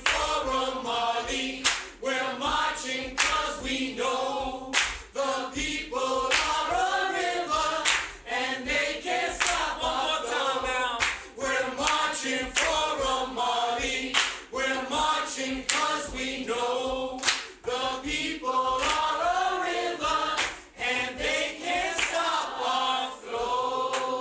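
A group of voices singing a marching protest chant a cappella, with hand claps on a steady beat about every second and a half.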